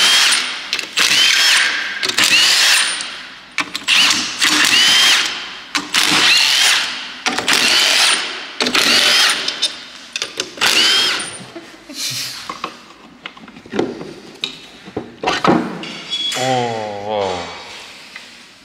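Cordless impact driver with a socket spinning bolts out of an aluminium gearbox housing. It runs in a series of short bursts, roughly one a second, and each burst rises in pitch as the tool spins up. A brief, different mechanical sound with a wavering falling pitch comes near the end.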